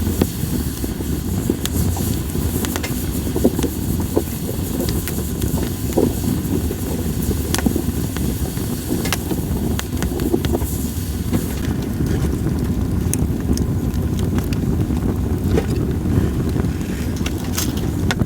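Campfire of split sawtooth oak (kunugi) firewood burning, with scattered sharp crackles and pops over a steady low rumble.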